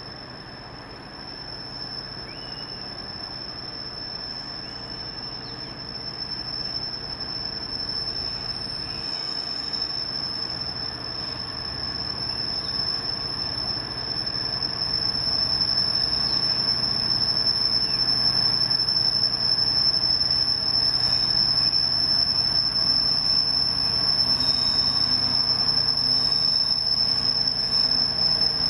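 Class 66 diesel-electric locomotive, with its EMD two-stroke V12, approaching at the head of a loaded coal train, its engine and running noise growing steadily louder. A steady high-pitched whine runs through it all.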